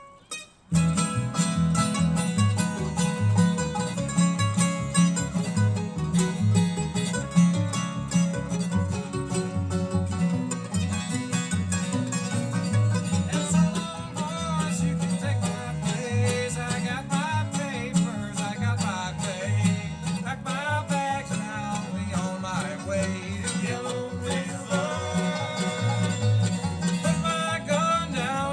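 A live bluegrass band kicking into an up-tempo tune less than a second in, with banjo and guitar picking over a steady bass beat.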